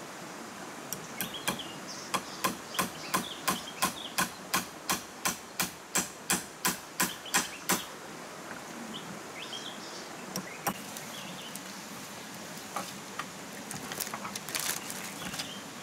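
Hammer striking a bamboo pole laid across a split-bamboo roof, fixing it in place: a steady run of sharp knocks, about three blows a second for some five seconds, then a few scattered taps. Near the end there is a short burst of light clattering on the bamboo.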